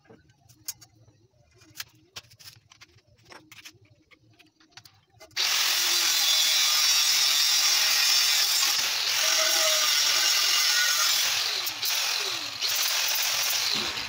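Angle grinder with a cutting disc slicing through a steel flat bar, starting about five seconds in after a few light clicks and knocks of handling the bar. The cut runs loud and even for about seven seconds, then eases off and the disc winds down near the end.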